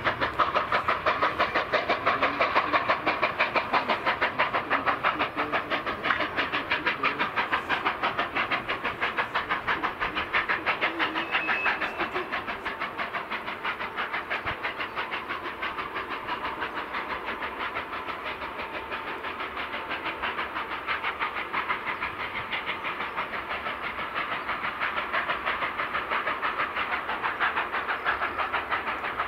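A train running, with a fast, even rhythm of beats that eases a little midway and picks up again towards the end.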